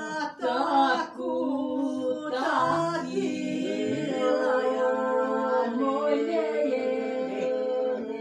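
A few voices singing unaccompanied together, a folk song in Aromanian, with long held notes and several voices sounding at different pitches at once.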